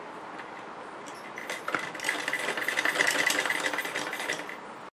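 Black domestic straight-stitch sewing machine stitching a seam through layers of fabric. It runs slowly at first, then speeds up and gets louder about a second and a half in, a rapid even chatter of needle strokes, and cuts off suddenly near the end.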